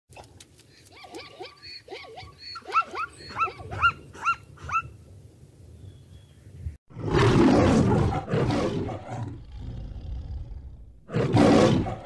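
Zebras giving a quick run of about ten short, yelping calls, each bending in pitch. Then from about seven seconds in, a male lion roaring in two long, rough, loud bouts, the second near the end.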